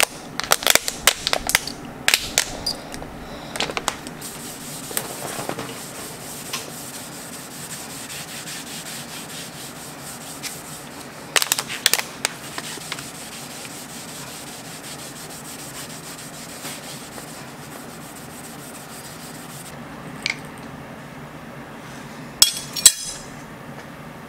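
Liquid squirted from a plastic bottle onto a clamped steel knife blade, in three short bunches of quick, sharp squirts: about a second in, near the middle and near the end. Faint rubbing and hiss lie between them.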